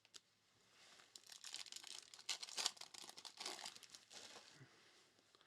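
Faint crinkling and tearing of a trading-card pack wrapper as it is ripped open and handled, irregular crackles lasting about three seconds.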